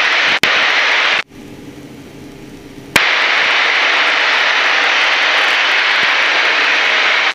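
Yak-52 cockpit noise heard through the intercom: a loud rushing hiss of wind and engine that cuts out abruptly about a second in and snaps back about three seconds in. While it is gated off, the much quieter steady drone of the nine-cylinder radial engine is heard.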